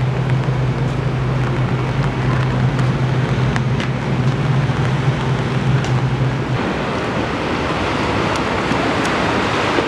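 Loud rushing noise of wind buffeting the camera's microphone, with a steady low hum under it that stops about six and a half seconds in. Near the end, surf breaking on a beach.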